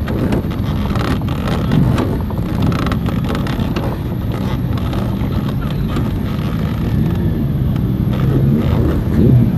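Motorcycle engines as riders pull away and pass one after another at low speed, with other bikes running in the background. Near the end one engine note rises as a bike accelerates.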